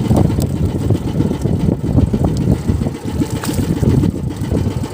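Small boat engine running steadily at idle with a rough, rapid pulsing.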